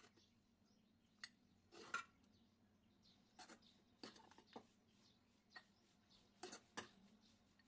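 Near silence with a dozen or so faint, scattered clicks and taps at irregular intervals.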